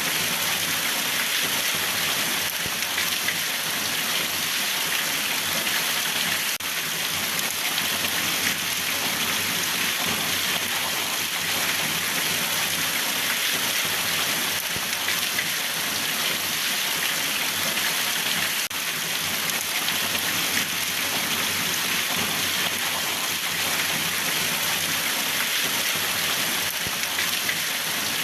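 Steady heavy rain falling on a surface, an even unbroken patter.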